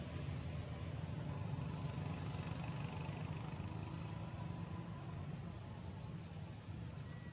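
Steady low engine rumble, like a vehicle running or idling, with faint high-pitched chirps scattered over it.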